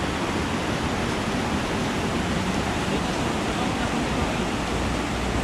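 Fast river rushing over boulder rapids: a steady, even rush of water.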